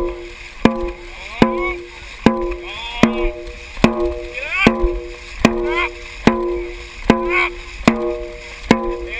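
Dragon boat drum, a large studded hide drum, beaten in a steady rhythm of a little more than one beat a second, each beat ringing briefly. The beat sets the paddlers' stroke rate.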